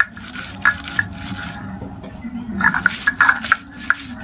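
Stone roller (nora) grinding wet onion and chilli paste on a stone slab (sil-nora), in rhythmic gritty scraping strokes about two or three a second. The strokes pause for about a second partway through, then resume.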